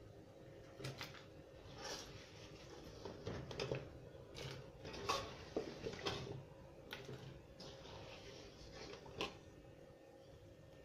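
Irregular clinks and taps of a fork and diced yam against a metal bowl as the yam cubes are moved into the pot, about a dozen separate knocks, over a faint steady hum.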